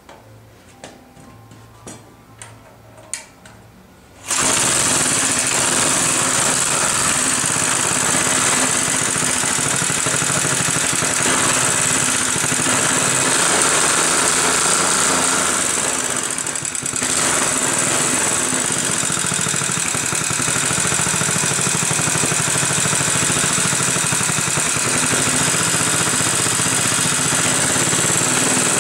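A few light clicks, then a small 3-horsepower four-stroke engine starts about four seconds in and runs steadily at a fast idle. It sags briefly once midway.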